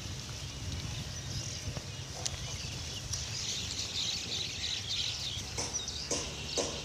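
A herd of wild boar rooting and feeding through a rubbish heap, with high chirping calls from about three seconds in and a few short sharp sounds near the end.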